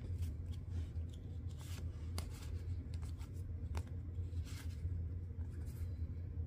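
Hockey trading cards being slid off a stack and flipped through by hand: irregular soft ticks and light scrapes of card on card, over a steady low hum.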